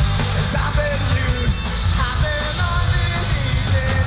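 Rock band playing live, with a male singer singing and shouting over the band.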